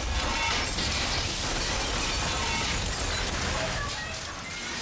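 Hurricane wind and heavy driving rain: a loud, steady rush of storm noise.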